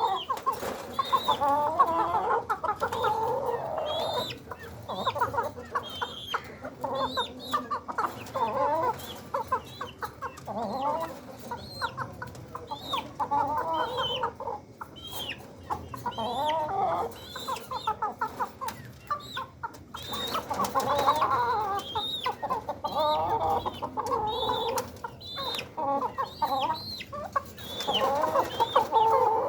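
Aseel and desi chickens clucking and calling continuously, with short squawk-like calls and many small clicks and scuffles among them.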